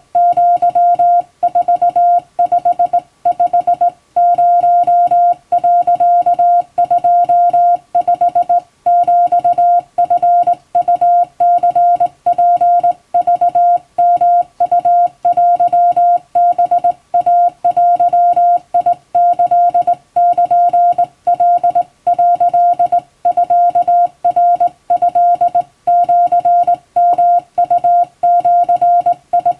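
Japanese Wabun Morse code sent by hand with a telegraph key: a single mid-pitched tone switched rapidly on and off in dots and dashes, with short pauses between characters.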